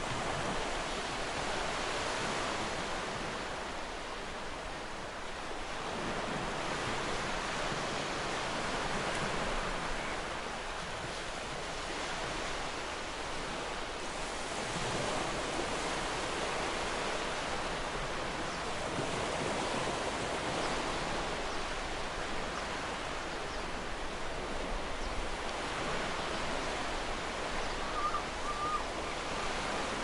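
Ocean waves washing onto a shore as a steady rush that swells and eases every five or six seconds. Near the end a bird gives a brief, faint call.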